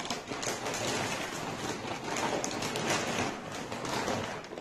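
Plastic packaging bag crinkling and rustling steadily as it is handled and pulled about.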